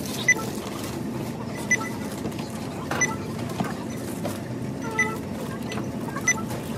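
Self-checkout barcode scanner beeping five times at uneven intervals, a short high beep as each item is scanned, over the steady background hum of a shop.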